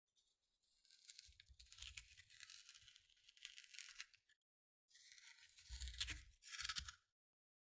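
A scoop scraping seeds and stringy pulp out of the cavity of a halved butternut squash, faint, in two stretches of scratchy scraping with a short pause near the middle.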